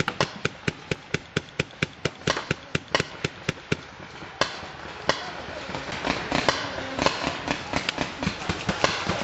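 Paintball markers firing in rapid strings of sharp pops, about five a second, with the volley growing busier and noisier from about halfway through as more markers fire at once.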